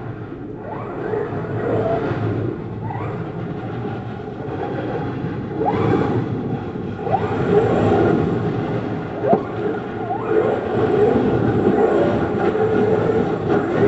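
Radio-controlled monster truck driving on an icy driveway: its motor whines up in short rising sweeps each time it accelerates, over a steady rushing noise of its tyres on the ice.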